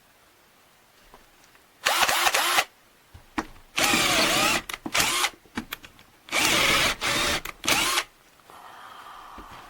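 KELNOW 21V cordless drill's motor run in three short bursts with a few brief blips between, the trigger squeezed and released, the motor's pitch rising and falling with speed.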